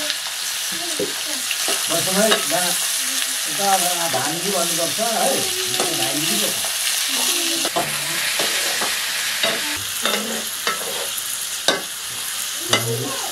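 A metal ladle stirring and scraping sliced vegetables and pork as they fry in oil in a karahi, over a steady sizzle. Several sharp clinks of the ladle against the pan come in the second half.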